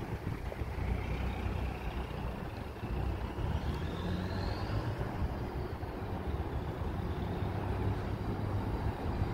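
Low, steady rumble of a train approaching along the line, with a faint high whine rising in pitch over the first few seconds.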